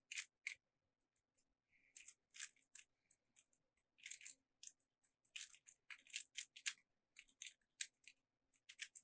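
Plastic Rubik's Cube layers being turned by hand: a faint, irregular run of quick clicks and scrapes in clusters, with a short pause about a second in.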